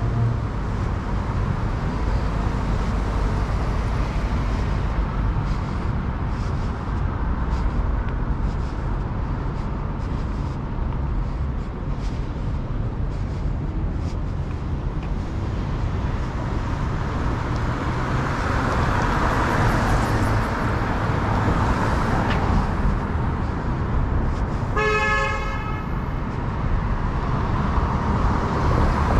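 City street traffic running steadily, with a low rumble of engines and tyres. A vehicle horn sounds once near the end, about a second long.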